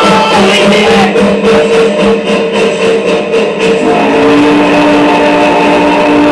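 Background music with a steady beat, giving way about two-thirds of the way through to long held tones.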